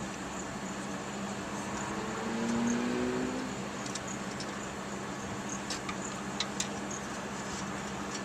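Steady background traffic noise, with a vehicle's engine hum rising briefly about two seconds in, and a few light clicks later on.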